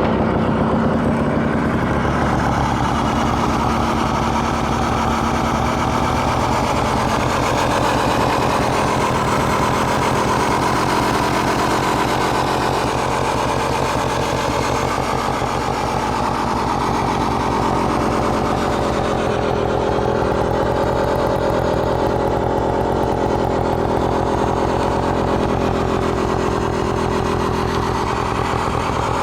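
Kymco Sooner 100 scooter engine idling steadily and loudly through a makeshift aftermarket silencer.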